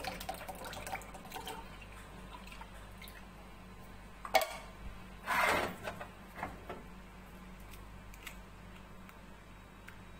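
Evaporated milk poured in a thin stream into a glass bowl of milk, trickling and splashing faintly and tailing off within the first couple of seconds. A sharp knock comes about four and a half seconds in, followed by a brief rustling noise.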